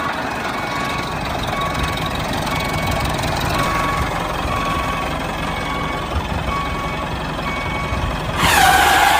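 Tractor engine running steadily while a reversing beeper beeps about once a second as the tractor backs up with its trolley. Near the end comes a short, loud whoosh that falls in pitch.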